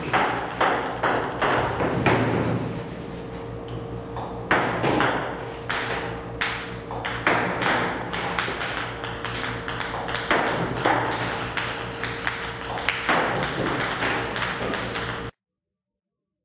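Table tennis balls from a ping-pong robot clicking against the table in quick, irregular succession over a steady hum. The sound cuts off suddenly near the end.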